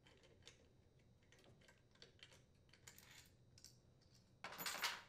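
Faint scattered clicks and light metallic rattles of hand work on the carburetor of a small engine: mounting bolts being unthreaded with a nut driver and the carburetor being handled. Near the end comes a brief, louder rustle, the loudest sound here.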